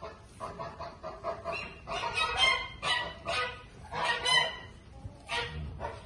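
Geese honking: a string of short, repeated calls, loudest and most frequent in the middle.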